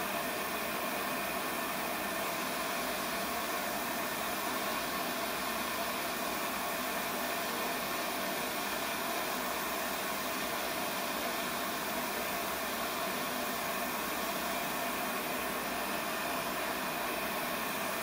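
Propane bench torch (a Lopet burner set to a focused flame) burning with a steady hiss while a glass bead is worked in it.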